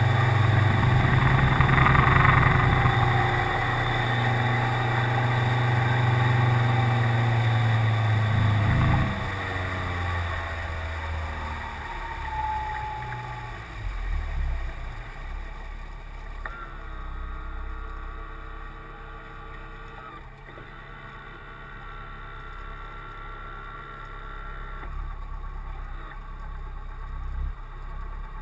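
Yamaha F50 four-stroke outboard running steadily at speed with water rushing past the hull. About nine seconds in it is throttled back, its note falling as the boat slows, and it then runs quietly at low speed.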